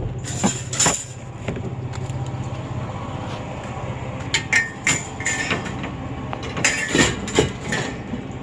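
A series of sharp knocks and clinks, hard objects striking each other, in three quick clusters over a low steady hum that drops back about three seconds in.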